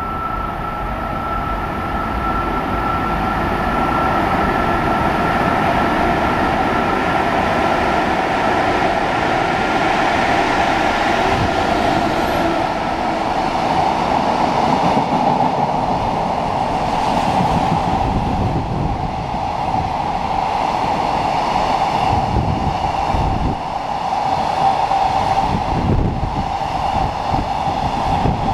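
Freight train hauled by the JR Freight EF81-303 electric locomotive passing through a station at speed. The wheels roll loudly on the rails, building over the first few seconds as the locomotive arrives, then the container wagons rumble and rattle past steadily with a sustained ringing tone.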